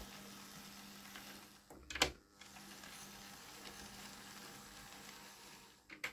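Hornby OO gauge LMS Black 5 model locomotive running slowly, its motor giving a faint, steady hum, super quiet and smooth. A sharp click sounds about two seconds in and another near the end.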